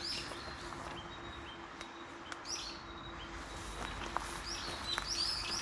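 A small bird calling, runs of short, quick chirps repeated about three times a second, once around the middle and again near the end, over a faint steady hum.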